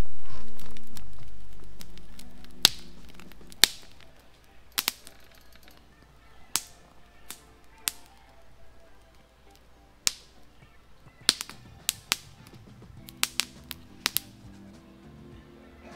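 A low note of background music fades out over the first few seconds. Then a wood campfire crackles, with a dozen or so sharp, irregular pops, several in quick clusters near the end, over faint music.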